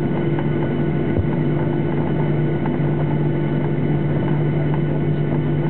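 Steady drone of a Boeing 737-800's CFM56-7B turbofan engines and airflow heard inside the passenger cabin, an even hum under a rushing noise.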